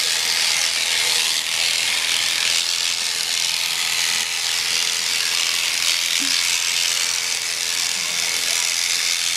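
Electric sheep-shearing clippers running steadily as they cut through a sheep's thick fleece: a constant high-pitched hiss with a steady hum beneath.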